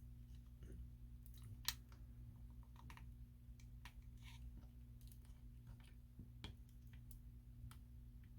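Near silence with a low steady hum, broken by scattered faint clicks and taps of small parts being handled and set in place while gluing, the sharpest about one and a half seconds in.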